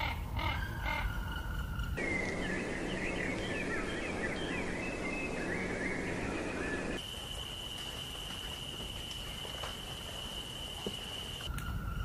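Small birds chirping and twittering, many quick calls overlapping over a noisy background, in a patchwork of recordings that cut abruptly about two, seven and eleven and a half seconds in. From about seven seconds a single steady high-pitched tone holds for several seconds.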